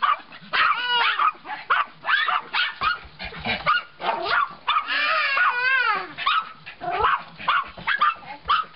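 Several small terrier dogs barking rapidly and repeatedly, overlapping, at a stray outside the door. A few longer, wavering whining cries are mixed in among the barks.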